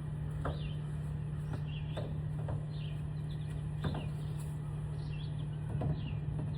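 A bird chirping over and over, roughly once a second, above a steady low hum. A few light metallic clinks come from tools working on the truck's steering shaft.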